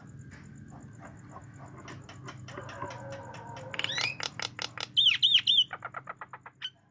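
Javan myna singing a varied, mimicking song: a run of clicks, rising chirps about four seconds in, then three loud swooping whistles followed by a quick string of clicks that fades out. A steady low hum lies underneath.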